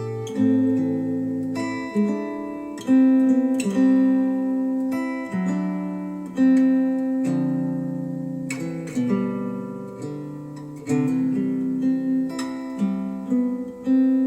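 Acoustic guitar music, plucked and strummed chords ringing out and decaying, played back through Wharfedale Denton 80th bookshelf speakers driven by a Sony STR-DH190 receiver.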